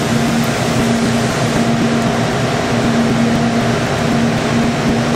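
Climate-control machinery of a warm, humid rearing room running: a steady mechanical hum with a constant low droning tone.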